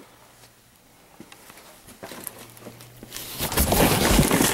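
Loud rustling and crackling of crumpled newspaper packing being handled in a shipping box, starting about three seconds in after a quiet stretch with a faint low hum.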